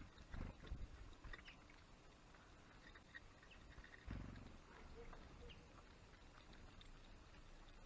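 Near silence with a few faint, short high chirps from small birds and two low thumps, one near the start and one about four seconds in.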